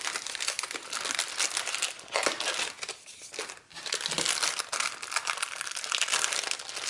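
Clear plastic bag of die-cut paper pieces crinkling as it is handled and pulled open by hand, easing off briefly about three seconds in.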